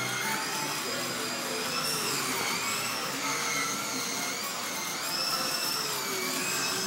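Electric motors of slot cars whining as the cars race round the track, the pitch rising and falling over and over as they speed up and slow down.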